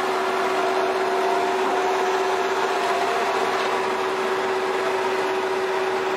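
Fishing vessel's machinery running with a steady hum and one constant droning tone.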